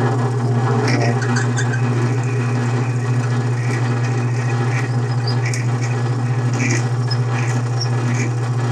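Metal lathe running with a steady low motor hum while a twist drill in the tailstock chuck cuts into the spinning workpiece, giving scattered short squeaks and scratches.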